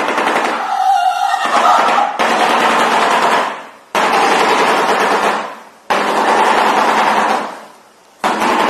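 Shoebill clattering its bill in rapid machine-gun-like rattles, about five bursts that each start abruptly and die away over a second or two. This is the display that is tied to courtship.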